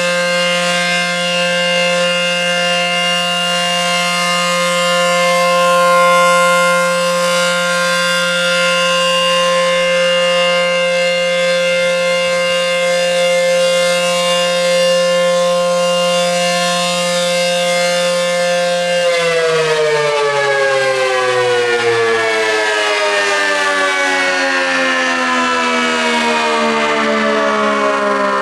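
ACA Penetrator 10 single-phase, dual-tone outdoor warning siren sounding a steady two-tone chord, then, about two-thirds of the way in, winding down with its pitch falling steadily as the alert signal ends.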